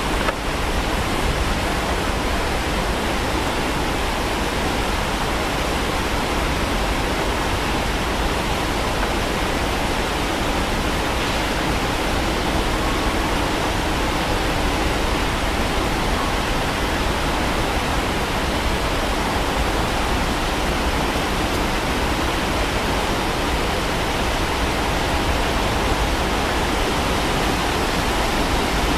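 Fast-flowing stream rushing over rocks in whitewater rapids: a steady, even roar of running water.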